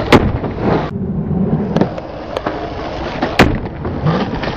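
Skateboard wheels rolling on concrete with a steady rumble, broken by a loud sharp clack of the board near the start and another about three and a half seconds in, with a couple of lighter clicks between.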